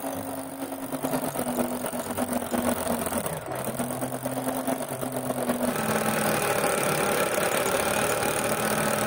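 Handheld electric jackhammer chipping into concrete, a continuous rapid hammering.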